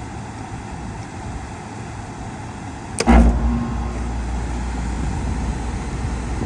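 A Goodman package heat pump's contactor clicks in about three seconds in, and the compressor starts at once with a loud low hum that then runs steadily: the compressor now starting with a new capacitor fitted.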